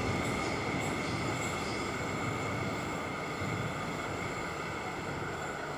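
X'trapolis electric suburban train running through the station: a steady rumble of wheels and running gear with a thin, steady high whine, growing slowly quieter.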